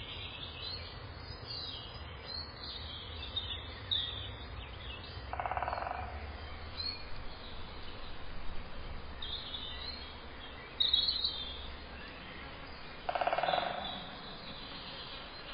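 Birds chirping in scattered snatches over a steady low hum, with two short buzzy sounds, about five and thirteen seconds in.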